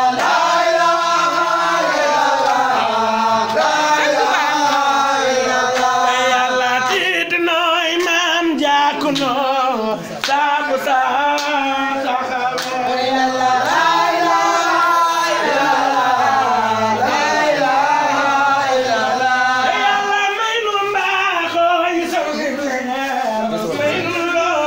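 A group of men singing a devotional chant together, voices only, without a break.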